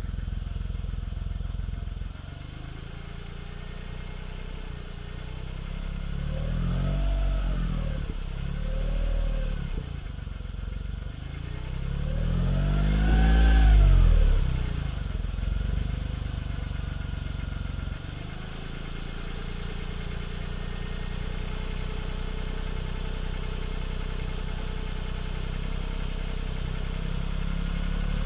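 Smart Roadster's small three-cylinder engine idling and revved three times in the middle, the third blip the highest and longest, then settling back to idle. It is run to show a knock that the owner is chasing.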